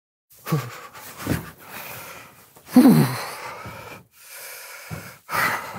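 A man's breathy huffs and groans, several sliding down in pitch and the loudest about three seconds in, made while shivering in the cold.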